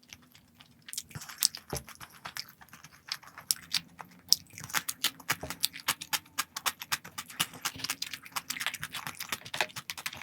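Close-miked chewing and crunching of crispy food, a dense run of sharp crackles starting about a second in.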